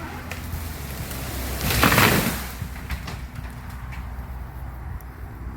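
Tall oak tree falling: a rush of breaking and swishing branches swells to a loud crash about two seconds in, then dies away.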